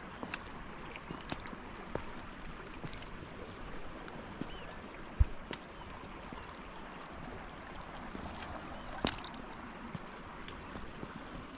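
Shallow seawater lapping and trickling at the shoreline, with scattered light clicks and one sharp low thump about five seconds in.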